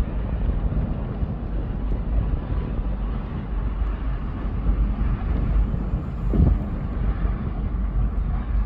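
Wind buffeting the microphone at the seashore: a steady low rumble.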